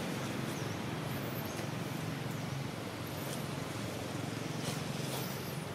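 Steady outdoor background rumble, with faint high chirps about once a second.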